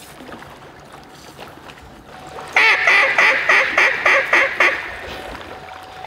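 A run of about nine loud mallard hen-style quacks, about four a second, starting two and a half seconds in and stopping about two seconds later.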